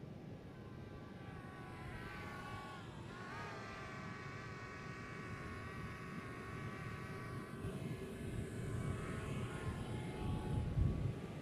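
DJI Spark quadcopter's propellers whining in flight, a stack of high tones that dips and rises in pitch about three seconds in, then holds steady and fades. A low rumble of wind on the microphone builds near the end.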